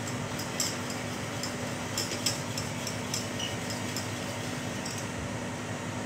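Wire balloon whisk clinking and scraping against the sides of a stainless steel saucepan as sugar and water are stirred to dissolve the sugar for a syrup. The light clinks come at an irregular pace for about five seconds and then stop, over a steady hum.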